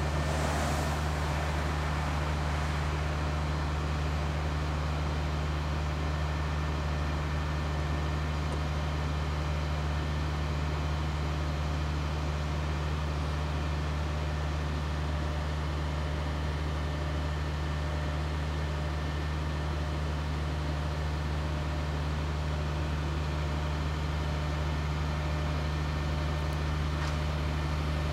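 A heavy engine idling steadily with a constant low drone, with a short rush of noise about a second in.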